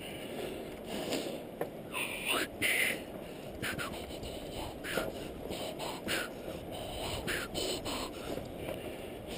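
A person walking across a suspended bridge of wooden boards on steel cables: short, sharp sounds about once a second from steps on the boards and gear on the cables, over a steady low rush.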